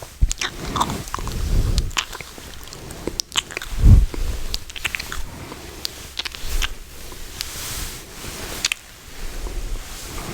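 ASMR mouth sounds right at the microphone: irregular wet clicks and smacks of lips and tongue, with a louder low thump about four seconds in.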